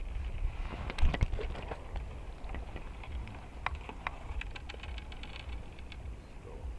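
Scattered small clicks, taps and rustles of fishing tackle and a fish being handled, with a louder knock about a second in, over a steady low rumble.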